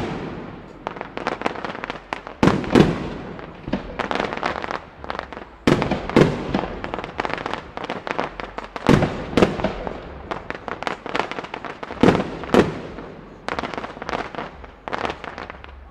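Fireworks display: aerial shells bursting in quick succession, sharp echoing bangs with dense crackling between them, the heaviest reports coming in pairs about every three seconds.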